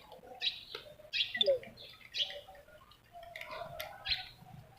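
A bird chirping in a string of short, high calls, several in a few seconds.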